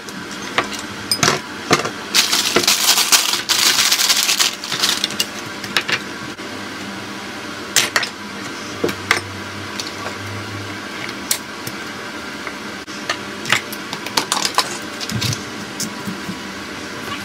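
Kitchen handling sounds on a wooden cutting board: bowls and vegetables set down and moved about, giving scattered knocks and light clatter, with a louder stretch of rustling about two seconds in.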